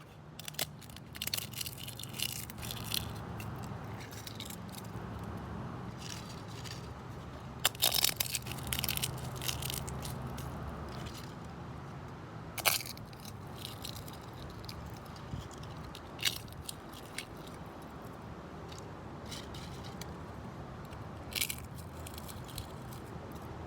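Irregular crackling and crunching: clusters of sharp crackles come and go over a low steady hum, loudest about 8 seconds in and again near 13 seconds.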